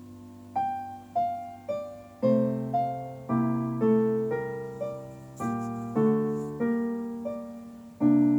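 Background piano music: after a fading chord, a slow melody of single struck notes, joined about two seconds in by lower bass notes, with a new chord struck near the end.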